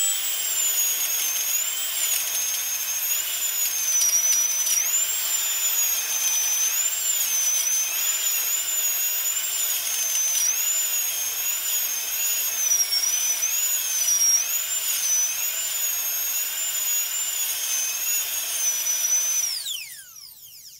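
Dentist's drill whining at a high pitch, the whine dipping and recovering again and again, then winding down and stopping near the end.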